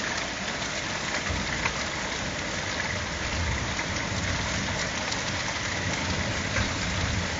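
Heavy rain from a thunderstorm downpour, falling in a steady, even hiss.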